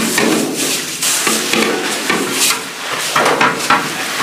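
Rice being tipped into a giant pot of boiling water for tehari, with a steady hiss of steam and cooking noise, and people talking in the background.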